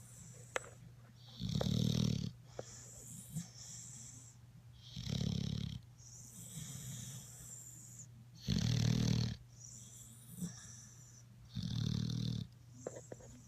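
Rhythmic snoring: four deep, loud snores about three and a half seconds apart, each followed by a softer, hissing breath out.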